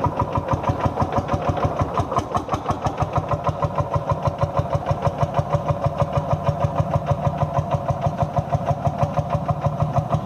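Old Landini tractor's engine running steadily, with an even, rapid pulsing beat of several strokes a second.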